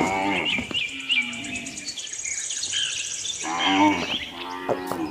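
A cow mooing twice: once at the start and again about three and a half seconds in. Birds are chirping and insects trill in the background.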